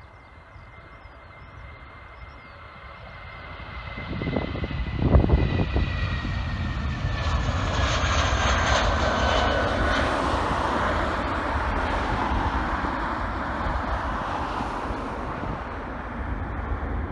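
Vueling Airbus A320 jet taking off: a high engine whine slides slowly down in pitch while the engine noise swells to full takeoff power, then the jet engines stay loud and steady as the aircraft climbs away. A brief sharp thump about five seconds in is the loudest moment.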